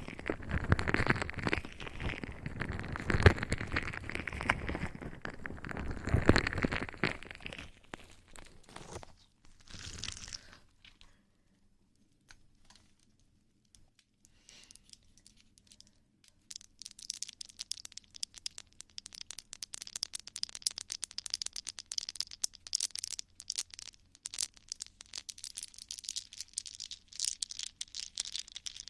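ASMR trigger sounds made close to the microphone: dense crinkling and rustling for the first several seconds, then a pause, then fine, crisp high-pitched crackling and clicking.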